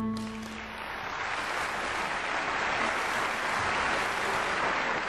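The song's last held note dies away within the first second, then a theatre audience applauds steadily.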